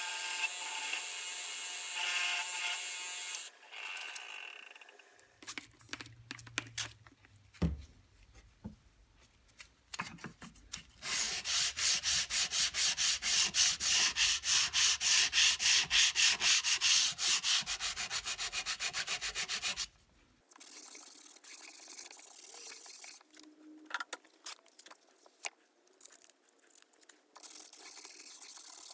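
Sanding the steel shank of a square-shank screwdriver by hand to clean it up and polish it: scratchy rubbing in several separate bouts. The longest bout, about halfway through, is a steady run of quick back-and-forth strokes, about three a second.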